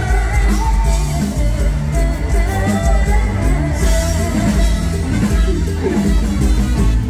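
Live Thai mor lam band music: a singer's melodic, gliding vocal line over a loud band with a heavy, continuous bass and drum beat.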